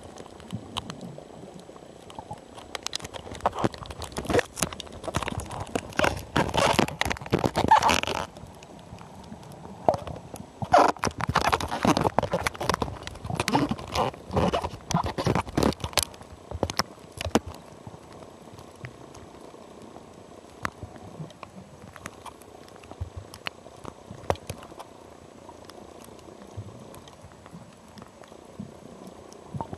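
Underwater bubbling from a scuba diver's exhalations, two long bursts of rushing, crackling bubbles a few seconds apart, then only a faint steady background with scattered clicks.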